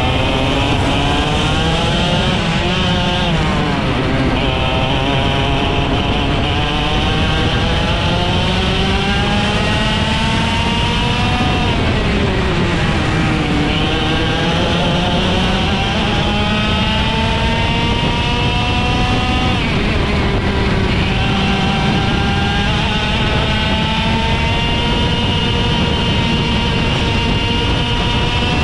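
IAME X30 125cc two-stroke kart engine at racing speed. Its pitch climbs slowly as it accelerates, then falls off sharply as the kart slows, about three times: near the start, around the middle, and about two-thirds of the way through.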